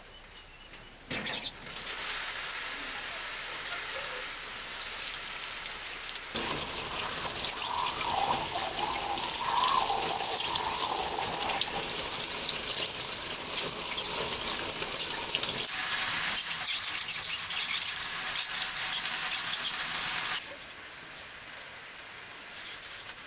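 Shower water pouring down from a pipe along the top of a bamboo shower stall. It starts about a second in, runs heavier from about six seconds to about sixteen, and shuts off around twenty seconds in.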